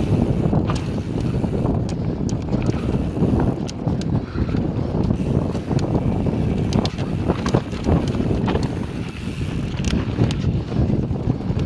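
Mountain bike riding a dirt trail: wind rushing over the microphone and tyres rolling, with frequent sharp clicks and rattles from the bike.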